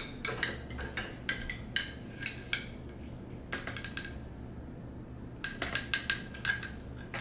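Assembled metal cleaning rod with a cloth patch on its tip being pushed through an AR-15 barrel, clicking and clinking against the metal in quick runs of small sharp knocks. The knocks pause briefly about halfway through, then start again near the end.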